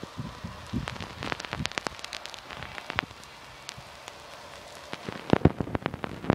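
Irregular light clicks and taps at uneven intervals, with denser, louder clicks from about five seconds in.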